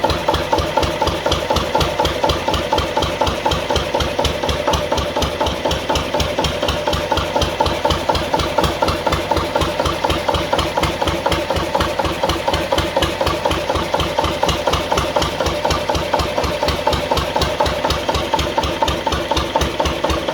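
Bamford diesel generator engine running steadily at constant speed, with an even, regular diesel beat.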